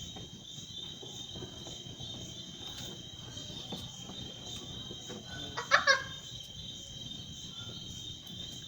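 Crickets chirping in a steady high trill, with a short squeaky chirp about six seconds in.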